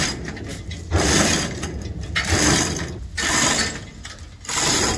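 Manual chain hoist clicking and rattling as its hand chain is pulled, in repeated strokes about once a second, while it takes the weight of a heavy steel stern tube.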